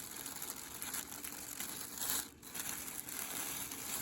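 Funko Pop box packaging crinkling and rustling as it is handled and opened, a continuous crackle of small ticks. It is loudest about two seconds in, then breaks off for a moment.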